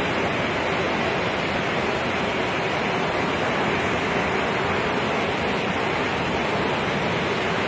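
Rushing floodwater of a river in spate: a steady, unbroken wash of water noise.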